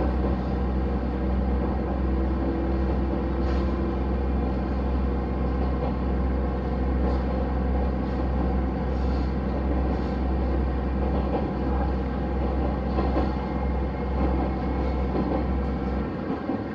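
Train running, heard as a steady low hum with a rumbling noise and steady tones above it; the low hum drops away near the end.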